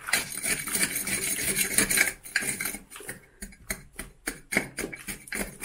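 A hand tool raking old mortar out of the joints of a stone wall, scraping against stone and grit. One continuous scrape for about the first two seconds, then quick short strokes, three or four a second.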